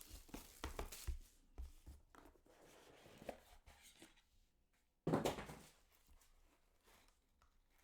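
Packaging of a trading-card box being torn and opened by hand: light taps and crinkly rustling, with one sudden louder rustle about five seconds in.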